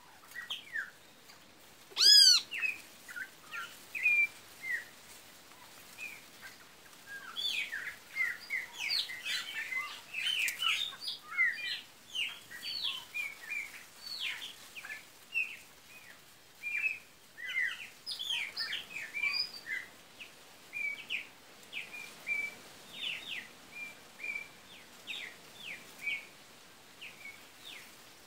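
Birds chirping: a steady run of short, quick chirps, with one loud call about two seconds in.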